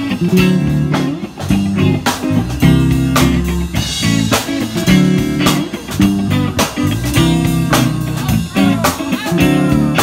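Live band playing: electric guitar and bass guitar through amplifiers over a drum kit keeping a steady beat.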